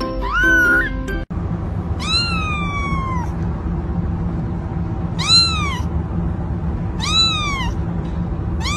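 Kittens meowing. Over soft music there is a short rising mew, then the music cuts off suddenly. A kitten then meows loudly again and again, about every two seconds, over a low steady hum. Each call rises and falls, and the first is the longest, sliding down in pitch.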